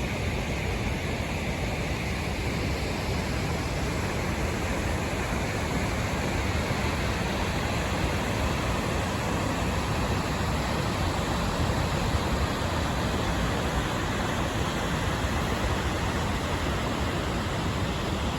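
Waterfall running high after heavy rain: a steady, even rush of falling water.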